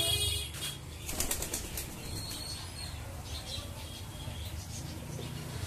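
Fantail pigeons flapping their wings: a short flutter of quick wing beats about a second in, over a low rumble.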